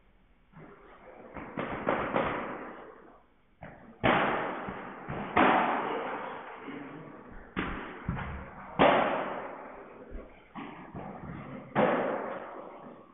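Padel ball being struck back and forth by rackets and bouncing off the court and glass walls: a string of sharp hits about a second apart. Each hit rings on with a long echo in the large hall.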